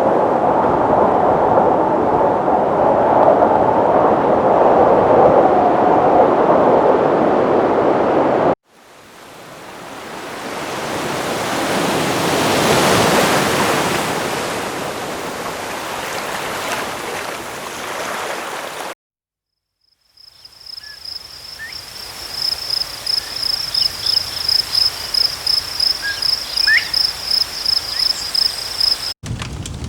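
Three nature recordings in sequence. First comes steady rushing water; then a single ocean wave swells in and slowly washes back; then, after a brief silence, a high insect-like chirping pulses steadily about four times a second, with a few faint bird chirps.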